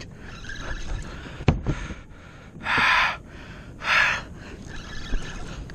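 Two hard, breathy exhalations about a second apart from an angler straining to pump and reel a hooked giant trevally up on a heavy jigging rod. A single sharp click comes earlier.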